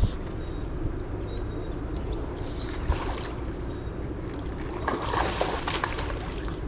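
Water sloshing and splashing as a hooked fish struggles at the surface, with one bigger splash about five seconds in.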